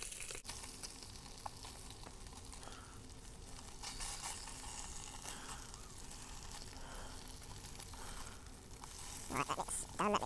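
Bacon sizzling and frying in a non-stick frying pan over a Trangia 25 meths burner, with a steady fizz and small crackles and a spatula moving it now and then. A brief voice-like sound near the end.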